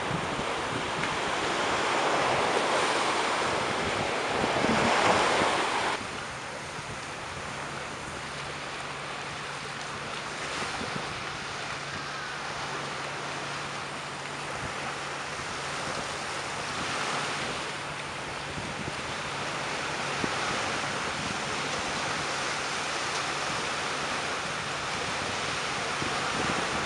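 Small ocean waves breaking and washing on a sandy shore, with wind on the microphone. The sound drops suddenly about six seconds in and goes on quieter and steadier.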